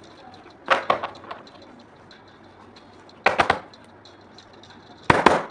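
Stiff black paper being handled and folded on a tabletop: three short crisp rustles, about a second in, a little past three seconds, and near the end.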